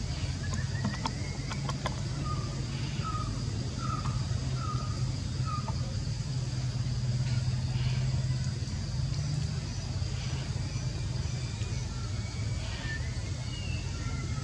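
A steady low engine-like drone, with a thin steady high tone above it. A run of short chirping calls sounds a few seconds in, and a few more come near the end.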